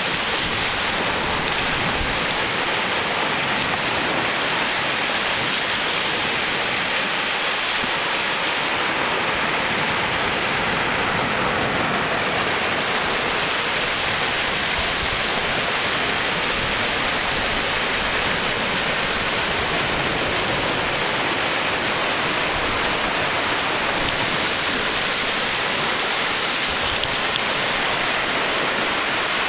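Small ocean waves breaking and washing up a sandy beach, a steady rushing hiss that holds at an even level throughout.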